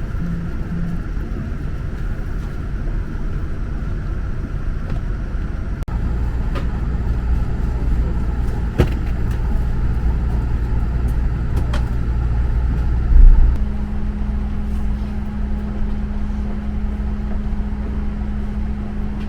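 Steady low hum and rumble of a Boeing 787-9 airliner cabin, with a few faint clicks. The hum changes pitch and level twice, about six seconds in and again near fourteen seconds, with a brief louder thump just before the second change.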